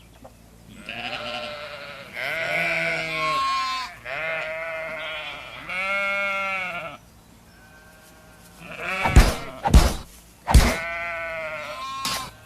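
Sheep bleating: a run of about half a dozen drawn-out bleats, one after another. Near the end three sharp knocks are the loudest sounds, among the last bleats.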